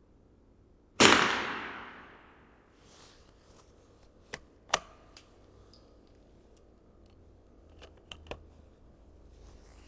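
A single .22 LR rifle shot about a second in, its echo dying away over about a second, followed by a few sharp clicks of the rifle being handled for the next shot.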